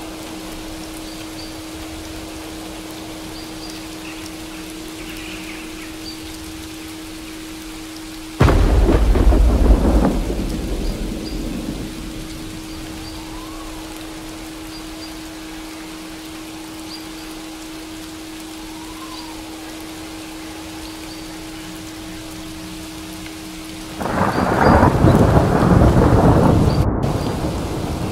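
Steady rainfall, with thunder breaking in suddenly twice, about eight seconds in and again near the end, each peal rumbling for a few seconds before fading.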